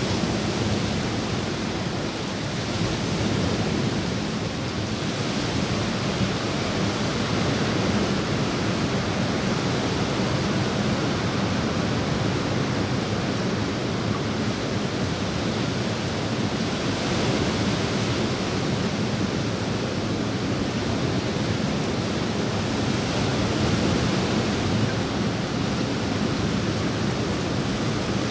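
Steady rain falling on a pool's water and the surrounding leaves, an even hiss that swells a little now and then.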